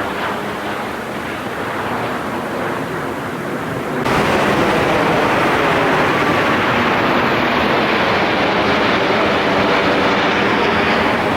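A train running past with a steady rumble, which jumps suddenly louder about four seconds in and then holds.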